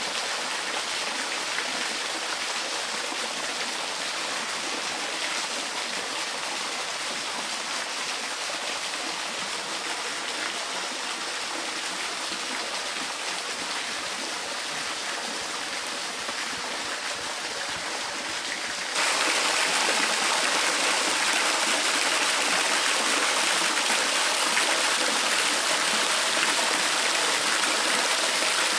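Spring water running and splashing steadily. About two-thirds of the way in it suddenly becomes louder and brighter, as if heard from much closer.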